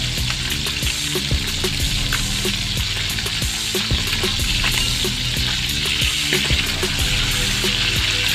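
Tulingan (frigate tuna) steaks frying in bubbling oil in a stainless steel pan, a steady sizzle, with the occasional click of metal tongs against the pan and fish as the pieces are turned.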